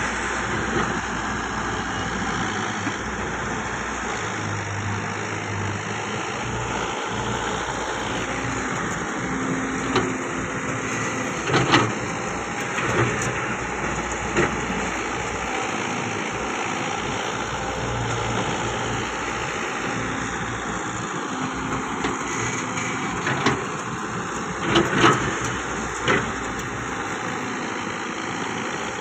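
Diesel engines of a tractor and a wheeled excavator running steadily, with a few sharp knocks and clatters, bunched near the middle and near the end, as the excavator loads soil and stones into the steel tractor trolley.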